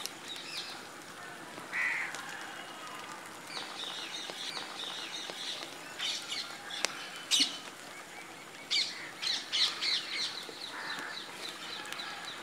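Small birds chirping over and over, with a crow cawing twice. A couple of sharp clicks about seven seconds in.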